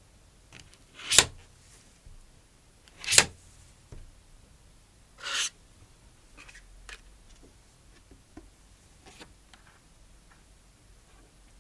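Gloved hands opening an Apple Watch Series 7 paperboard box: two sharp tearing sounds about two seconds apart, a softer, longer rip a couple of seconds later, then light rustling and small ticks as the paper flaps are unfolded.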